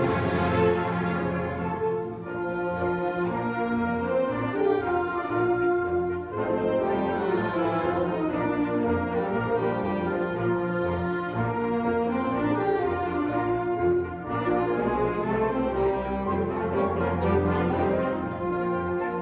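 A concert wind band playing a sustained full-ensemble passage, with brass prominent.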